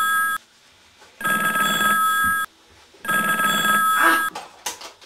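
Telephone ringing in rings of about a second with short gaps between: the end of one ring, then two full rings, cutting off about four seconds in. A voice is heard near the end.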